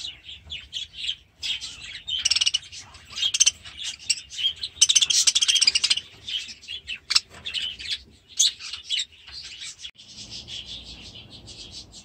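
Budgerigars chattering, a dense run of quick chirps and warbles that is loudest about halfway through. The chirping fades about ten seconds in, giving way to a faint low rumble.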